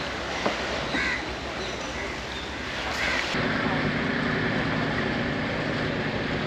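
Crow-like cawing calls, about three short caws roughly a second apart, over a steady background hiss. About three seconds in, the sound cuts abruptly to a steady low hum.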